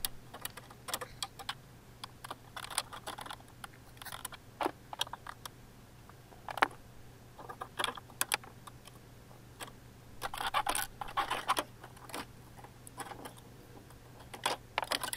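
Hard plastic trim studs and a plastic trim panel being prised with a plastic trim tool: irregular small clicks, taps and scrapes in clusters, with one sharp click about six and a half seconds in.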